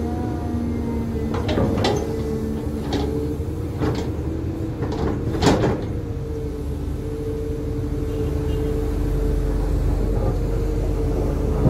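Cat 320 hydraulic excavator running with a low engine rumble and a whine held steady, while its grading bucket scrapes and knocks against the dirt slope. Several sharp clacks come through, the loudest about five and a half seconds in.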